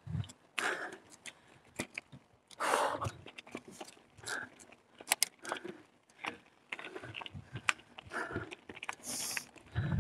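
Carrera Hellcat mountain bike rolling over a rough dirt trail: irregular clicks and rattles with short crunchy bursts from the tyres and frame, turning into a heavier low rumble near the end.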